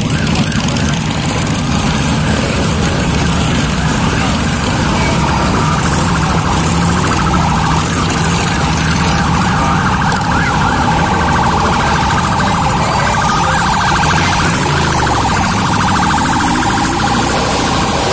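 Motorcycles, mostly Harley-Davidson V-twins, running past at slow parade pace. About six seconds in, a rapidly warbling siren starts and sounds over the engines.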